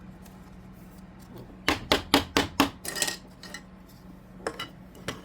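A quick run of five or six sharp taps and clicks about two seconds in, then a few more near the end: trading cards and plastic card sleeves being handled and knocked against a table.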